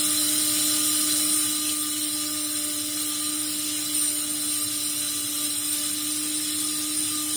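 Electric blade spice grinder running at a steady whine as it grinds red chili powder fine. The motor cuts off at the end.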